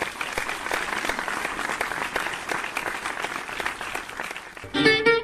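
Audience applauding, a dense patter of many hands clapping. Near the end it is cut off by guitar and string music starting abruptly.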